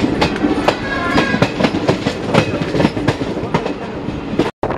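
Wheels of a moving passenger train clattering over rail joints and points, heard from aboard the coach as a rapid, uneven run of clicks over a steady rumble. The sound cuts out for a split second near the end.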